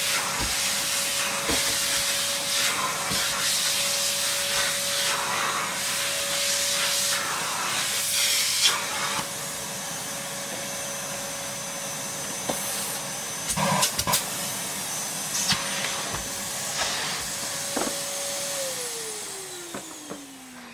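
Numatic Basil NB200 vacuum cleaner running, with a steady motor whine over the rush of suction and a few knocks around the middle. Near the end it is switched off, and the whine falls steadily in pitch as the motor spins down.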